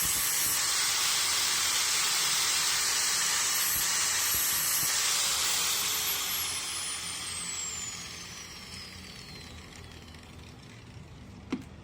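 Bench grinder sharpening a dull 8 mm drill bit: a steady grinding hiss for about six seconds, then it is switched off and winds down with a falling whine. A single knock near the end.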